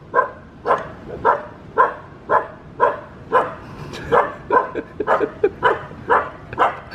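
Husky puppy barking over and over, about two short barks a second in a steady rhythm: alarm barking at a plastic bag in the yard.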